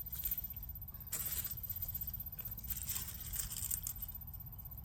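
Dry garden soil being dug and scraped through while harvesting potatoes, heard as irregular scraping and rustling in a few bursts over a steady low rumble.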